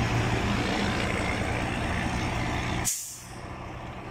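Tractor-trailer engine running under a steady rushing noise. About three seconds in, a short sharp hiss, after which the sound drops much quieter while the low engine hum carries on.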